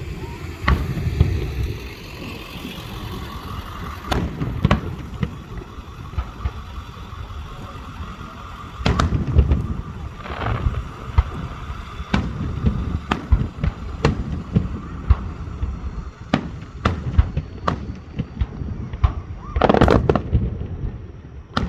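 Fireworks going off in a show: a string of sharp bangs and deeper booms at irregular intervals, with a dense crackling burst near the end.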